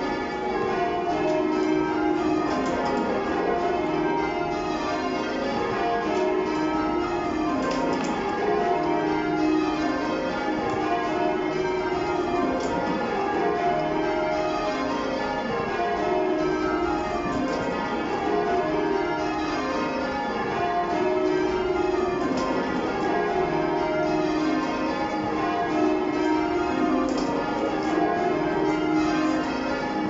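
A ring of ten church bells, the back ten of a twelve-bell ring with a 21 cwt tenor in E♭, rung full-circle in call changes. Row after row of strikes steps down the scale, steady and unbroken, heard from the ringing chamber below the bells.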